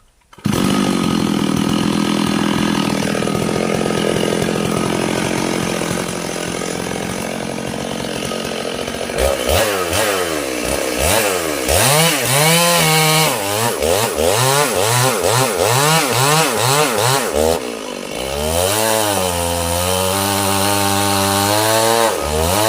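Two-stroke chainsaw running at high revs, starting suddenly about half a second in and holding steady for some nine seconds while it cuts wood. The throttle is then revved up and down about ten times in quick succession before the engine settles at lower revs near the end.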